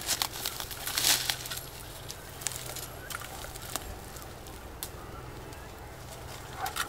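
Rustling of leaves and branches, with scattered clicks, as a mosquito trap is handled and hung from a tree branch; busiest in the first second or so, then sparser. A low steady hum runs underneath.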